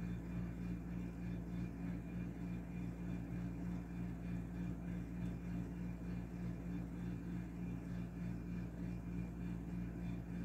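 A steady low hum with a constant tone and a faint hiss, unchanging throughout.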